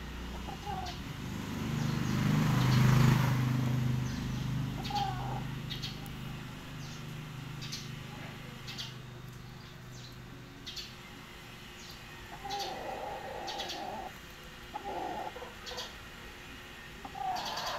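Rooster giving short low clucks now and then, over short high chirps that repeat throughout. A louder low rumble with a steady hum swells and fades about two to four seconds in.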